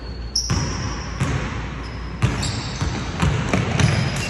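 Basketball bouncing on a hardwood gym floor: a string of irregular thuds in a large hall, mixed with a few short, high sneaker squeaks.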